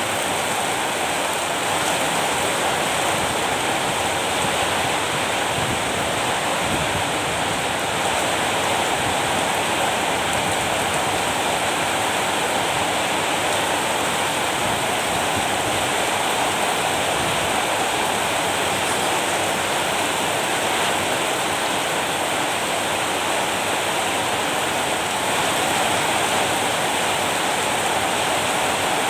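Steady rain falling, a dense even rush of water that holds the same level throughout.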